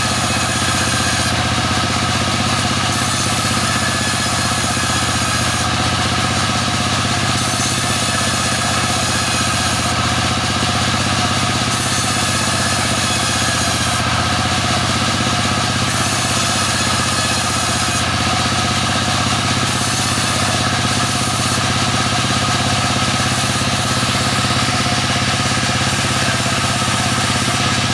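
Sawmill machine's engine running at a steady speed, an even drone that holds one pitch without rising or falling.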